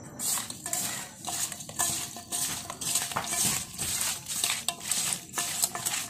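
Handful after handful of small raw khoira fish being mixed with turmeric and salt in a stainless steel bowl: wet fish slithering and scraping against the metal in quick, irregular strokes, with a faint ringing of the bowl.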